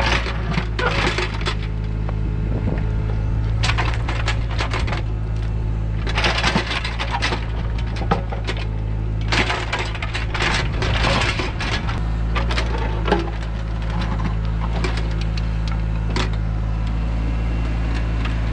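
John Deere mini excavator's diesel engine running steadily under load. Its steel bucket repeatedly scrapes and crunches through rocky soil, with stones clattering.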